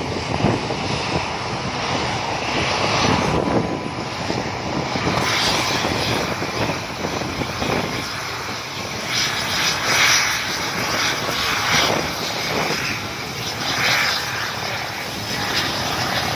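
Mi-17 military helicopter running on the ground, its twin turboshaft engines and turning rotor making a steady, loud whine-and-rush of noise, with a few swells in loudness towards the end.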